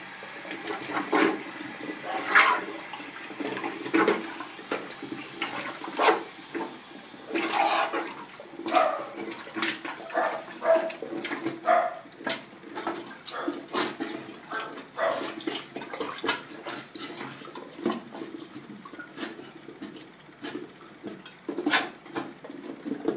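Rubber plunger being worked in water: repeated irregular splashing, sloshing and squelching strokes, about one every second or two.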